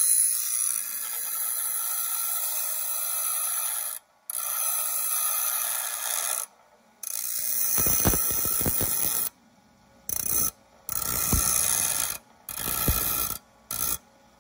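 Bench belt sander grinding a point onto a steel seat-webbing hook clip held in locking pliers, with sparks flying. The grinding hiss runs in several stretches broken by sudden short gaps, and the later stretches carry heavier rumbling as the clip is pressed to the belt.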